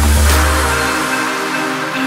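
Electronic background music: a deep bass note and a bright crash at the start die away over about a second, leaving held chords without a beat.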